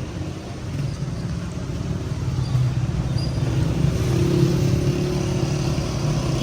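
Street traffic: a motor vehicle's engine running close by, a steady low hum that grows somewhat louder over the first few seconds.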